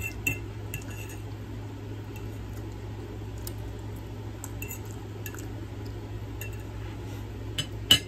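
Metal fork clinking and scraping against a ceramic plate now and then. A louder clink comes near the end as the fork is set down on the plate. A steady low hum runs underneath.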